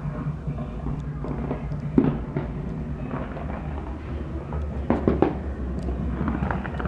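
Aerial fireworks bursting: a sharp bang about two seconds in and two more close together about five seconds in, with crackling near the end, over a steady low rumble.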